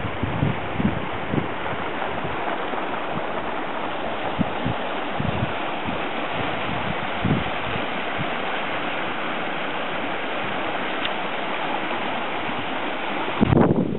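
Snowmelt floodwater rushing and churning steadily as it flows over ground and swirls into a whirlpool, with occasional brief low thumps and a louder low rumble near the end.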